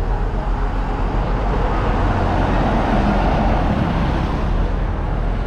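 Steady road traffic noise: the continuous rumble of motor vehicle engines and tyres.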